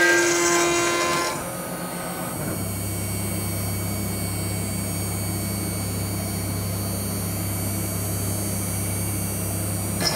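Mechmate CNC router milling 10 mm S355MC steel plate with an endmill. The cut gives a steady pitched whine for about the first second. Then the cutting sound stops and only a steady low hum of the machine remains while the tool is lifted off the plate, until cutting starts again right at the end.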